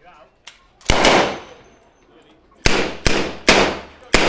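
Five single gunshots from WWII-era rifles and a light machine gun firing blanks, at irregular intervals, one about a second in and four close together near the end, each trailing off in an echo.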